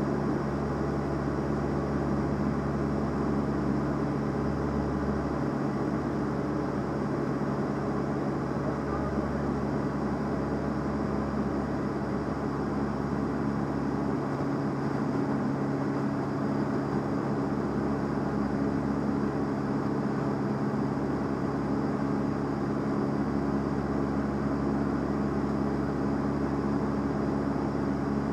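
Van's RV-7A's piston engine and propeller running at cruise, heard from inside the cockpit as a steady drone.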